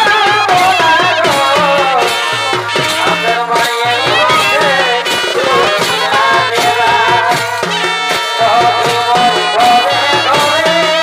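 Background folk music with a steady beat: a wavering melody over a repeating bass pattern and percussion.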